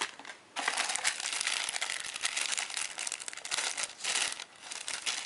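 Thin translucent wrapping sleeve crinkling as it is handled around a phone's leather pouch, a dense crackle of small clicks that starts about half a second in.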